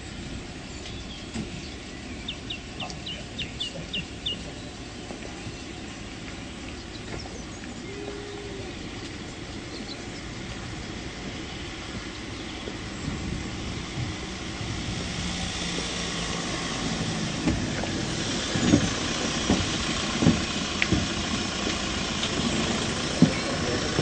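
Footsteps of a group walking slowly on a tarmac driveway over steady outdoor background noise. The noise and the irregular steps grow louder in the second half, and there is a quick run of high ticks about two seconds in.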